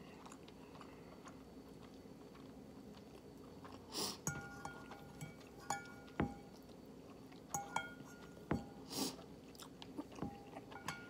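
Metal fork clinking and scraping against a ceramic bowl of noodles several times from about four seconds in, each clink leaving a short ring, with quiet chewing. Two short hissing sounds, about four and nine seconds in, are among the loudest.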